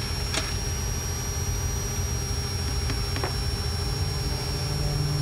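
Steady low drone of an aircraft's engines heard inside the cockpit, with a thin high whine over it. A few faint clicks and taps come near the start and about three seconds in.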